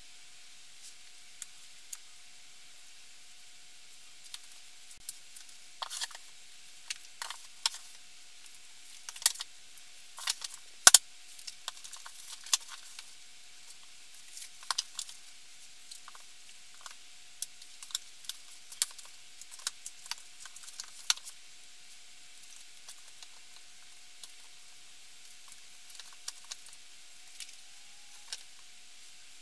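Books being handled and stacked onto a bookshelf: irregular taps, knocks and scrapes, busiest in the middle, with one sharp knock standing out about eleven seconds in, over a faint steady hum.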